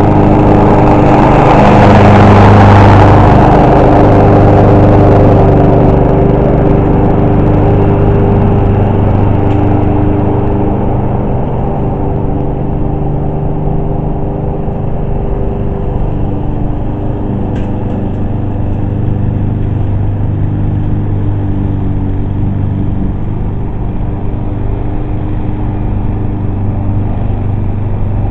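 Engine of a Subaru 21-inch self-propelled lawn mower running steadily while cutting long grass. It is loudest, with added hiss, for the first few seconds, then settles a little quieter.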